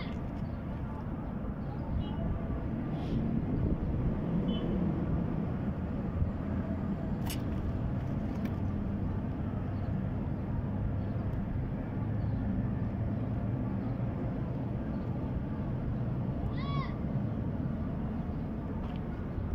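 Steady low rumbling background noise, with a short high-pitched call right at the start and another about three-quarters of the way through.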